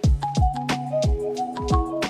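Background music with a steady electronic beat: falling kick-drum thumps and sharp high percussion hits under held synth notes.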